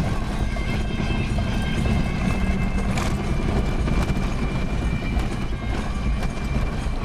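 An engine running steadily while under way, with a low rumble and a constant rushing noise of wind and travel.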